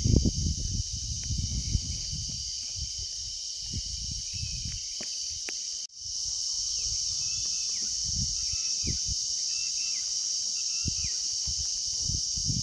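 Insects, such as cicadas, drone steadily at a high pitch, with a few faint short chirps over them. Low rumbles of wind on the microphone are strongest in the first couple of seconds. The sound cuts out for an instant about six seconds in, then resumes.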